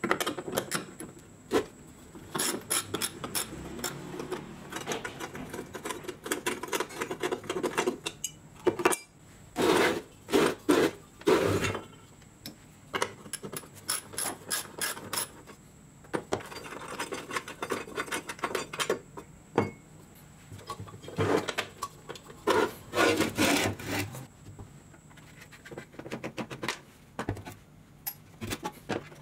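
Ratchet wrench clicking in short runs as it turns nuts on an old bench grinder's sheet-metal base, with the clinks of steel tools and parts being handled. The louder ratcheting comes in two stretches, one a third of the way in and one about three quarters through.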